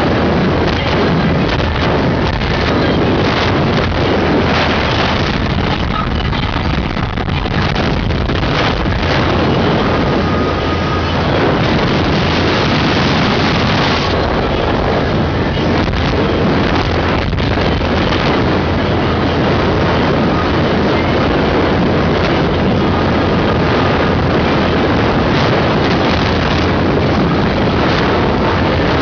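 Loud, steady wind noise on the microphone of a motorboat under way, with the boat's engine running underneath.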